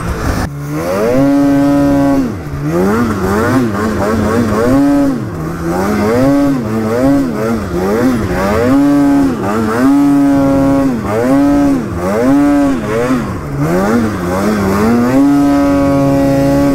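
Snowmobile engine revving up and down under throttle while the sled works through deep snow. The pitch climbs and drops about once a second, with a few longer stretches held at high revs, the longest near the end.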